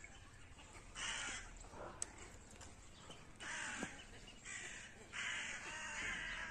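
Crows cawing in the trees: a run of caws about a second in, another at about three and a half seconds, and a longer stretch of calling from about five seconds on.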